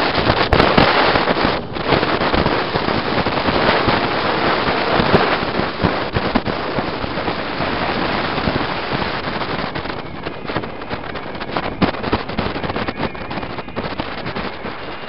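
Loud wind and road noise buffeting the microphone inside a moving truck's cab, full of rapid crackling, easing off somewhat over the last few seconds.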